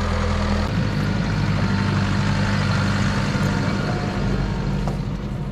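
Off-road vehicle engine running steadily while driving uphill on a rough mountain track, with rumbling tyre and road noise; the engine note shifts slightly about a second in.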